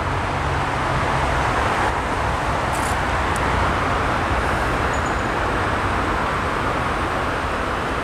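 Steady road traffic noise: a continuous rush of passing vehicles with a low rumble, swelling slightly about a second in.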